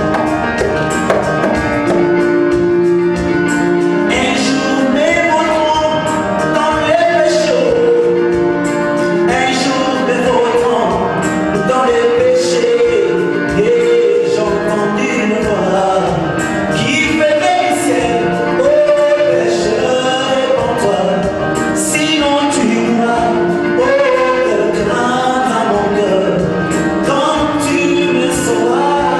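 Gospel worship song: a man singing a slow melody over held keyboard chords.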